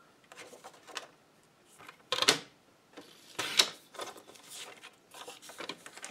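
Stampin' Up! paper trimmer cutting designer paper: the blade carriage is drawn along the rail in two short scraping sweeps about a second and a half apart, with paper rustling and light clicks as the sheet is handled.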